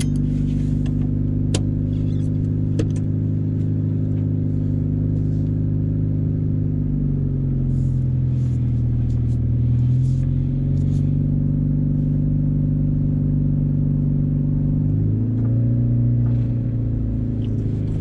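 1998 Honda Civic hatchback's engine running, heard from inside the cabin, its pitch rising about seven seconds in, falling back, and rising again near the end as the car pulls away. Two sharp clicks come in the first few seconds.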